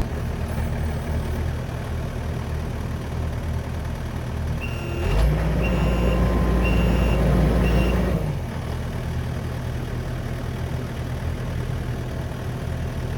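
Skid steer engine running, then revving up for about three seconds midway while its reversing alarm beeps four times, before settling back to a steady idle.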